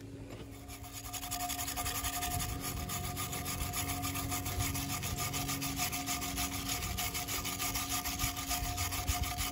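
Steel wire brush scrubbing rust and grime off the hub-mounting face of an alloy wheel, in rapid back-and-forth strokes that start about a second in.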